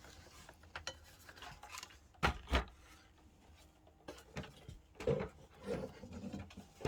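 Scattered handling noises of tools and parts: light clicks and scrapes, with two sharper knocks a little over two seconds in and a few dull knocks near the end. The grinder is not running.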